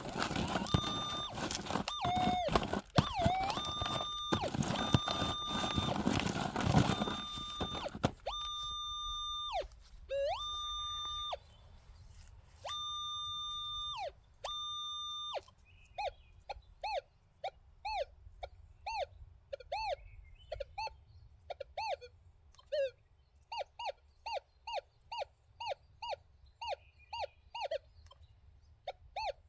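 Metal detector target tones: steady, even-pitched beeps over scraping and clattering from digging in rocky tailings for the first several seconds. Then a few clean beeps about a second long, and from about halfway a long run of short rising-and-falling chirps, about two a second, as the coil is swept back and forth over the target.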